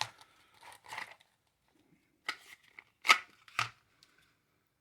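Handling noise as a pistol and its packaging are moved about: several sharp clicks and knocks with light rustling, the sharpest about three seconds in.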